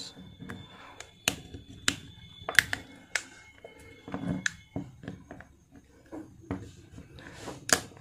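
Plastic back cover of a Realme C35 phone being prised off by fingernail, with irregular sharp clicks and snaps about once a second as its edge clips let go.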